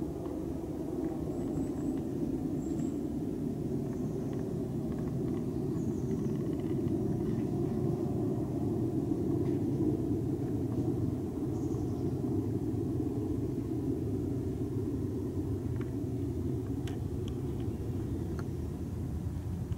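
Steady low rumble. A few faint, short high chirps come in the first half, and a few light clicks near the end.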